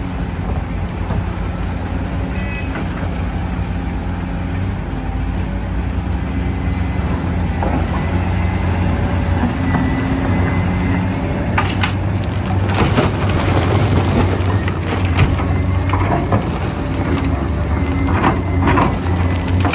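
Caterpillar hydraulic excavator's diesel engine running steadily under load while it digs. In the second half the bucket scrapes and clanks against rock and dirt.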